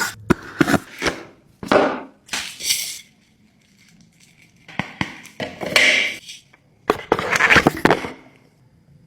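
Phone box and its packaging being handled and opened: crinkling and rustling with sharp clicks and knocks, in several bursts with a short lull about three seconds in.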